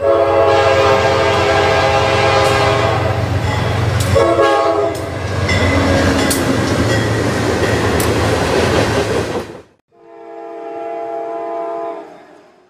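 Amtrak GE P32-8 diesel locomotive passing close with its multi-chime air horn blowing, a long blast and then a shorter one, over the engine's rumble and wheels clacking on rail joints. After a sudden cut, a fainter train horn sounds for about two seconds.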